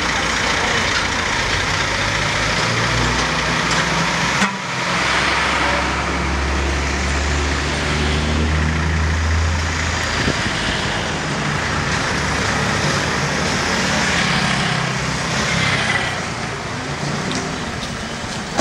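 Road traffic driving past close by: the engines and tyres of passing vehicles, with a low engine rumble strongest about halfway through as a minivan goes by.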